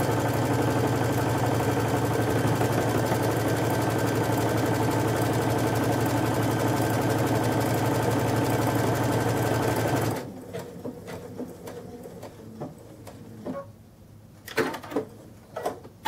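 Electric sewing machine running steadily as it stitches a buttonhole with a one-step buttonhole foot, stopping suddenly about ten seconds in. A few light clicks and knocks follow.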